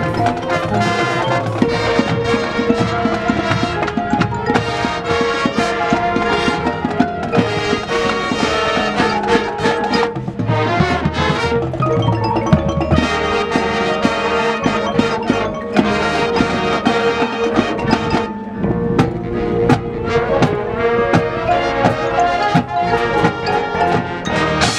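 High school marching band playing: brass with drums and mallet percussion such as marimba and xylophone.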